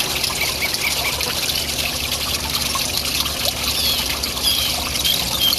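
Small garden-pond waterfall, water trickling and splashing steadily into the pond.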